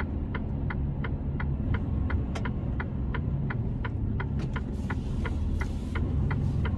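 A truck's turn-signal indicator ticking evenly, about three ticks a second, for a left turn, over the steady drone of the Mercedes-Benz truck's engine and road noise inside the cab. A short hiss comes about two thirds of the way through.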